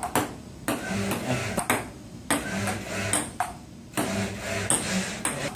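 Ping-pong ball clicking off the table and paddles during a rally between a robot arm and a person, a sharp tap about once a second.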